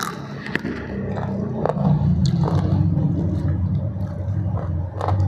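Biting into ayam geprek (smashed fried chicken) with a sharp crunch at the start, then close-up chewing with scattered crackles, over a steady low rumble.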